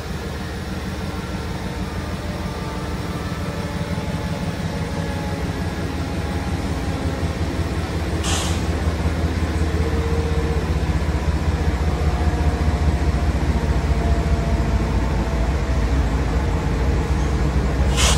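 Norfolk Southern diesel-electric freight locomotive idling at a standstill: a steady low engine rumble that grows gradually louder, with a short sharp noise about eight seconds in.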